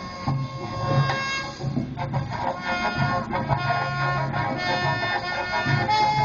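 Background music: an instrumental melody of held notes over a recurring low bass note.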